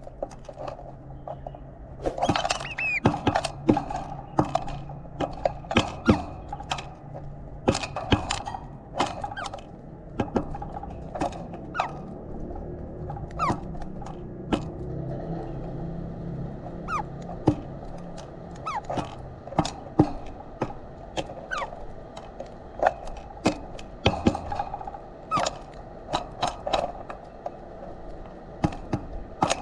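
Birds pecking seed at a feeder: a fast, irregular run of sharp taps and knocks on the feeder's hard seed bowl, some in quick clusters.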